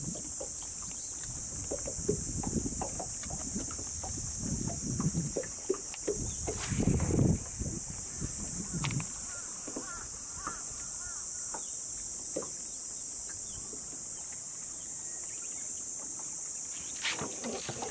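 A steady, high-pitched chorus of insects, with low knocks and rustles from handling a rod and reel in a small boat, heaviest a few seconds in.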